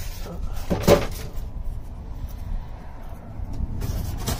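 Handling noise from a floor jack being moved: a single sharp knock about a second in, over a steady low rumble.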